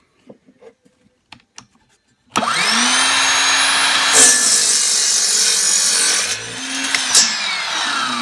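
Ryobi 18-volt cordless 7¼-inch miter saw making a 45-degree cut in wood. After a few light clicks the motor starts about two seconds in with a rising whine, and the blade cuts through the wood for about two seconds, louder and rougher. A knock follows, then the motor winds down with a falling whine near the end.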